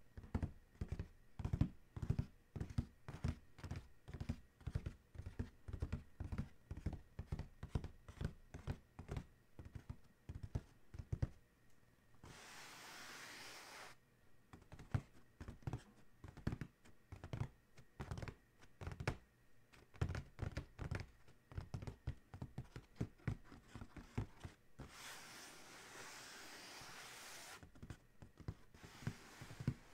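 Fingertips and nails tapping quickly on the lid of an Adidas cardboard shoebox, a fast run of dull knocks. Twice the tapping gives way to two or three seconds of nails scratching across the cardboard.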